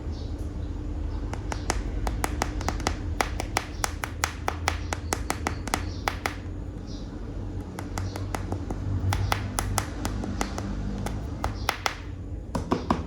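Hard plastic animal toy figures being handled, clicking and tapping against each other or a surface in a rapid, irregular run of sharp clicks, with a short pause about halfway through, over a steady low hum.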